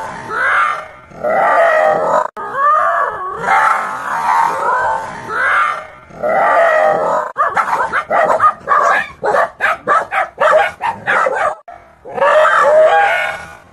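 A dog makes drawn-out, wavering calls. About halfway through these give way to a fast run of barks, about four or five a second, before the drawn-out calls return near the end.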